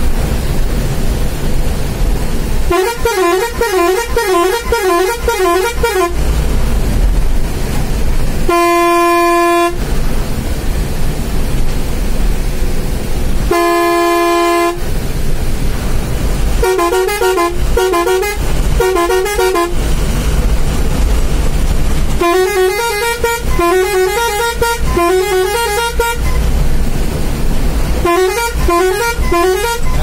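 Bus air horns sounded one after another in separate bursts. Most are a warbling multi-tone musical horn, alternating pitches rapidly. Two are single steady blasts of about a second each, near nine and fourteen seconds in. A steady low rumble runs underneath.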